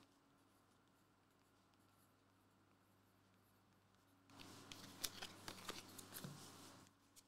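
Near silence, then about four seconds in a faint rustle with small clicks as trading cards and a paper slip are picked up and handled, lasting about three seconds.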